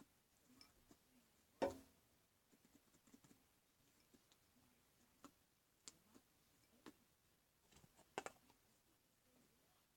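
Faint, scattered clicks and light taps from objects being handled, with one louder knock about two seconds in.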